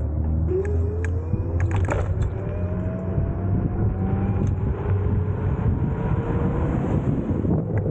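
Nanrobot electric scooter's hub motor whining as it speeds up, the whine rising slowly in pitch over a steady rumble of tyres and wind. A few sharp knocks come about two seconds in.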